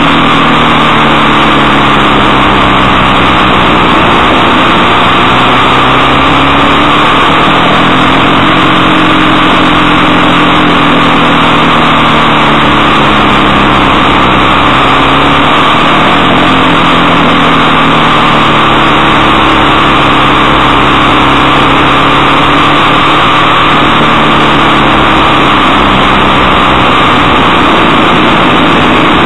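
Motorcycle engine running at road speed, its pitch rising and falling as the throttle opens and closes through the bends, under heavy wind noise on the microphone. Loud, near the top of the recording level throughout.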